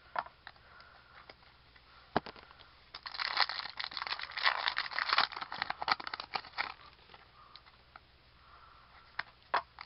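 A trading-card pack wrapper being torn open and crinkled, in a dense burst of crackling lasting about four seconds in the middle. Before and after it come scattered light clicks of cards being handled.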